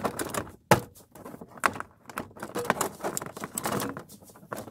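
Hands pressing and shoving on a 3rd-gen Toyota 4Runner's plastic dashboard to push it down onto its windshield clips: a run of knocks, clicks and rustling, the sharpest knock about three-quarters of a second in.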